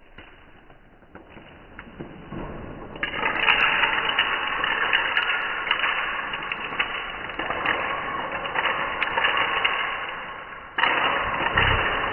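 Dense crackling and rustling that turns loud about three seconds in. Near the end it stops abruptly and a low hum takes over.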